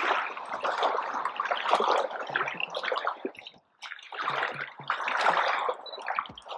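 Water splashing and dripping in irregular bursts, broken by a short lull about halfway through.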